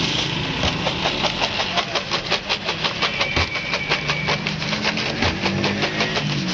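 Seasoned french fries being tossed in a plastic bowl: they rattle against its sides in quick, even strokes, about four or five a second, over a steady low mechanical hum.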